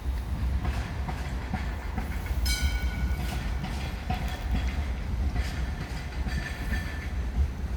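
Hong Kong Light Rail train passing at street level: a steady low rumble from the running gear, with wheels clicking over the track. About two and a half seconds in there is a brief high ringing tone lasting under a second.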